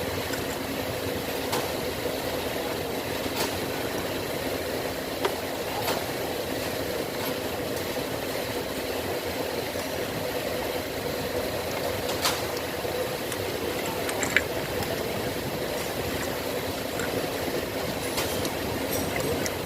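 A steady machine hum with a low, even tone, and a few scattered light clicks and taps, the loudest about three-quarters of the way through.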